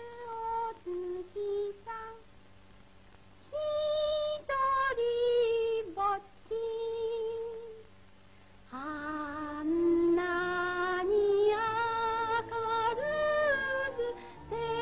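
High singing voice with vibrato, sung in short lullaby-like phrases on an old, narrow-band film soundtrack. After two brief softer pauses, the singing grows louder and fuller from about nine seconds in.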